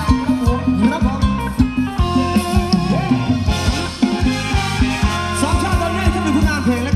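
Thai ramwong dance music in a cumbia style, played by a live band with a steady beat and bass.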